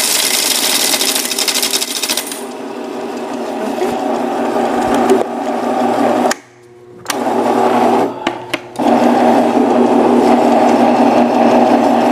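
Electric coin counting machine running, with coins rattling through it for the first two seconds, then a steady motor whir. The machine stops and restarts briefly twice near the middle.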